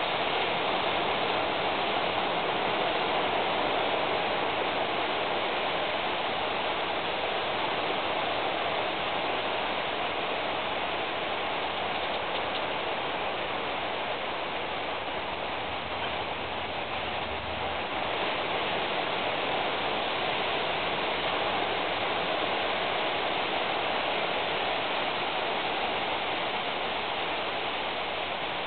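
Steady rain, an even hiss that holds unchanged throughout.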